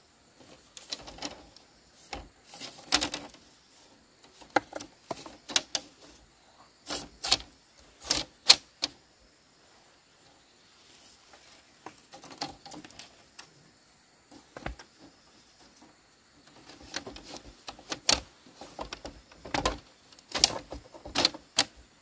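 Split bamboo strips clattering and knocking against one another as they are laid and woven over and under into a flat bamboo mat: irregular clusters of light, dry taps and rattles with short pauses. A faint steady high tone runs underneath.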